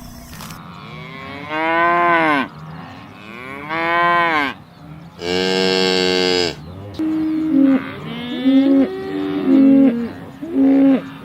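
Cattle mooing: three long moos, each rising and then falling in pitch, followed from about seven seconds in by a quick run of shorter, choppier calls.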